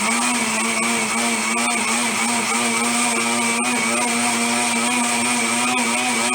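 Electric blender running steadily at one speed, its motor whine holding a constant pitch over a high hiss. It is pulverizing aloe vera gel and water into a foamy liquid.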